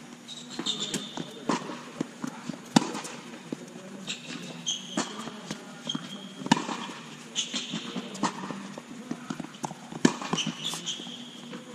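Tennis practice on an indoor hard court: racket strikes and ball bounces at irregular intervals, with the loudest hits about three seconds in and near the end, and shoes squeaking briefly on the court several times as the player moves.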